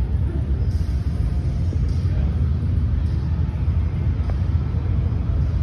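Pickup truck engine idling: a steady low rumble.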